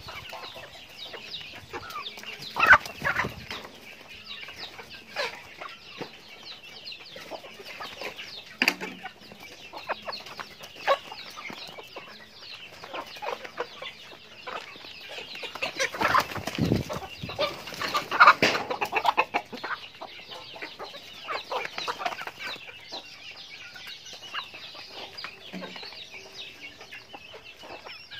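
A flock of chickens clucking continually as they feed. The calls are short and overlapping, with louder flurries about three seconds in and again just past the halfway point.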